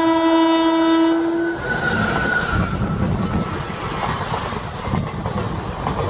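Electric locomotive's horn sounding one long note that stops about a second and a half in, then passenger coaches passing at speed, with a steady rumble and clatter of wheels on the rails.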